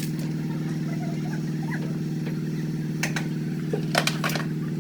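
Heavy construction machine's diesel engine running steadily at an even speed, with a few sharp knocks about three and four seconds in.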